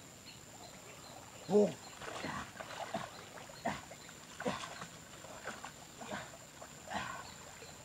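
A pig grunting and squealing in a string of short calls, the loudest about a second and a half in.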